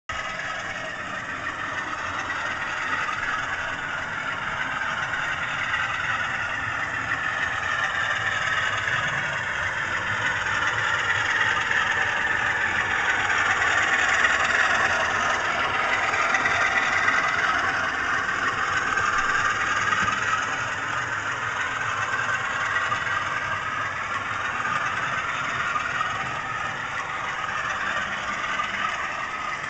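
An OO gauge Bachmann Class 47 model's DCC sound decoder plays a Class 47 diesel engine under power through the model's small loudspeaker. The engine note runs steadily and swells to its loudest about halfway through as the model passes close.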